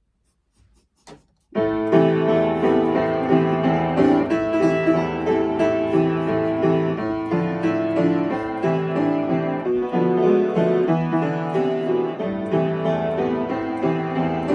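Solo piano starts playing about a second and a half in, after a short silence, and goes on with a continuous flow of notes and chords.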